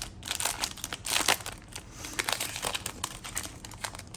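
Trading-card pack wrapper crinkling and tearing as it is ripped open by hand: a run of crackly rustles, densest about a second in, easing off near the end.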